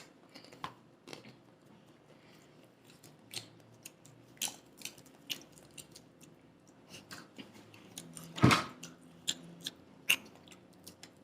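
People chewing and eating at close range: scattered wet smacks and small clicks of mouths and food, with one louder short knock about eight and a half seconds in.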